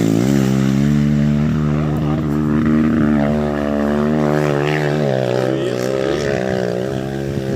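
Honda XR 250 Tornado's single-cylinder four-stroke engine held at high, steady revs under load on a steep hill climb. It eases off slightly about five seconds in.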